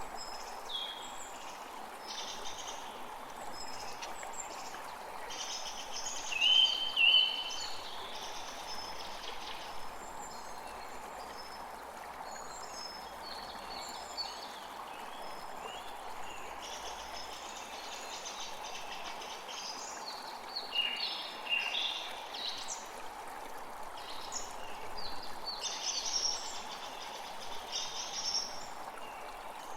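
Songbirds chirping and calling over a steady rush of flowing water. The loudest calls, a pair of short notes, come about six to seven seconds in, with more bursts of chirping later on.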